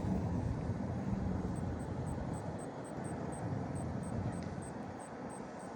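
A distant engine droning steadily and slowly fading away. From about a second and a half in, a faint high ticking repeats about five times a second.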